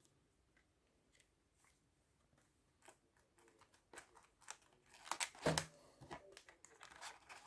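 Trading cards and foil card packs being handled: faint scattered clicks and crinkles that start about three seconds in, busiest a little past the midpoint.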